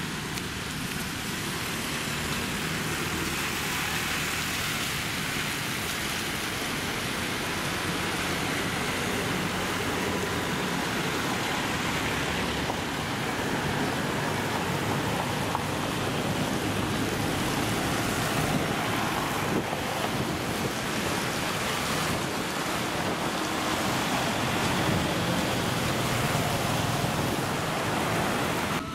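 Steady road traffic noise: cars, taxis and motorbikes passing on a busy street, a continuous hiss of engines and tyres.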